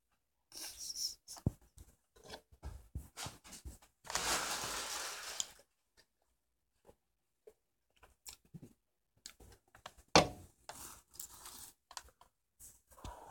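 Handling noises close to the microphone: rustling and tearing with scattered clicks and knocks, and one steady hiss lasting about a second and a half around four seconds in.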